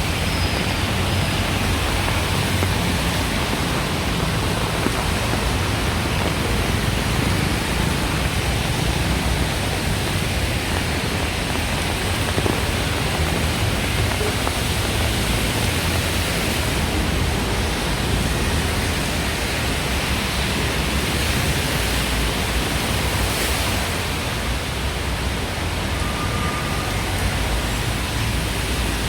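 Heavy rain falling steadily: an even hiss with no breaks.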